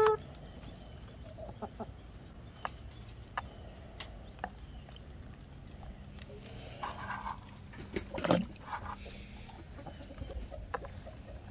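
Hens clucking now and then, loudest a little past the middle, with scattered light clicks as they drink and peck at a plastic dome poultry waterer.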